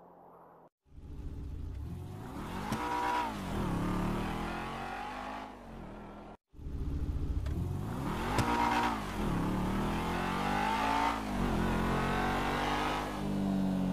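Sports car engine revving, its pitch climbing and falling back several times. The sound cuts out briefly just under a second in and again about halfway through, then the same revving pattern starts over.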